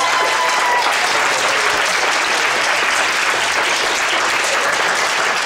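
A roomful of students applauding steadily at the end of a lecture-hall performance.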